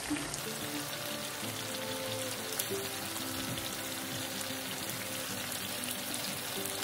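Chicken and tomatoes sizzling steadily in hot oil in a karahi, a constant crackling hiss, with soft background music underneath.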